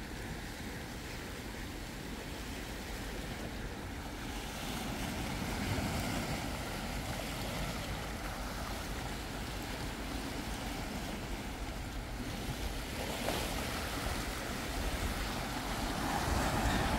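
Small sea waves lapping and washing over shoreline rocks, with wind rumbling on the microphone; a wave washes in a little louder near the end.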